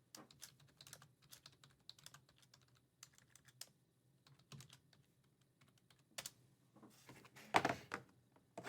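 Irregular light clicks and taps of hands handling trading cards and their plastic holders, with a louder burst of handling noise about seven and a half seconds in.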